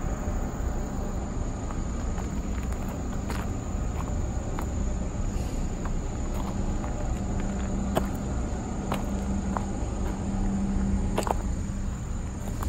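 Insects, crickets by the sound, trilling steadily on one high note, over a low rumble and a faint steady hum. Scattered short clicks come at irregular intervals, fitting footsteps on a stony, debris-covered path.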